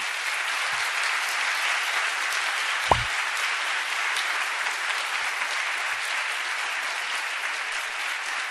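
Audience applauding steadily after the lecture's closing thanks, a dense continuous clapping. A single brief thump about three seconds in.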